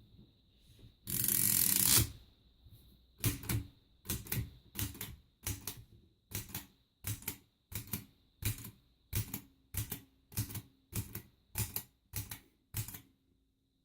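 Empire typewriter, the Canadian-made Adler design whose typebars thrust forward onto the platen, being typed on at a steady pace of about two sharp clacks a second. A louder, harsh noise lasting about a second comes about a second in, before the typing starts.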